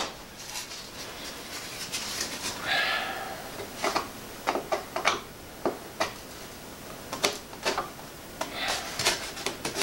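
Scattered light clicks and taps of foam and plastic model-airplane parts being handled as the tail fin is fitted into place.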